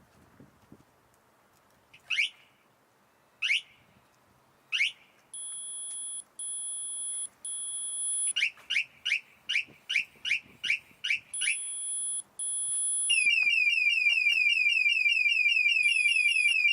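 Hexis UTV security alarm (powered by Scorpio) sounding its tones: three rising chirps, the signal it gives on arming, then steady two-tone beeps and a quick run of chirps. About thirteen seconds in it switches to a loud, fast warbling siren.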